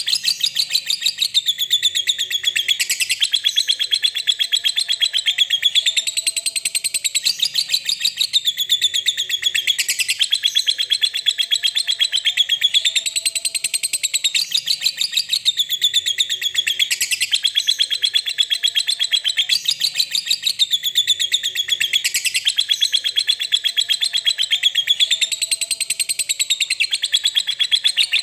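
Lovebird ngekek: a long, unbroken run of rapid, high chattering trills in phrases that repeat about every three seconds, stopping abruptly at the end. This is the song played as a lure to prompt other lovebirds to sing.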